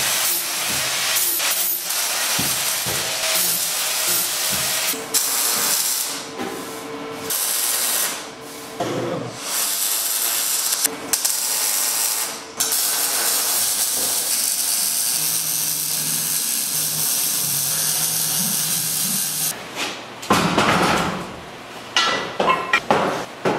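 MIG welder arc on steel tubing, crackling and hissing steadily in several welds with short breaks between them, stopping about twenty seconds in. Louder irregular clattering of steel follows near the end.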